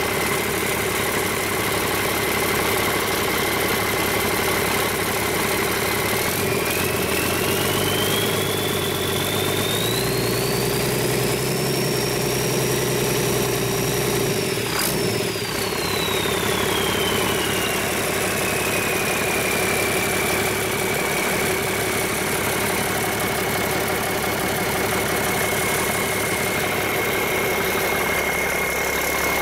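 Rebuilt 8.3L Cummins inline-six diesel running: it idles, is revved up about six seconds in and held, then drops back to idle, with a high whine that rises and falls with engine speed. There is a single sharp click around the top of the rev.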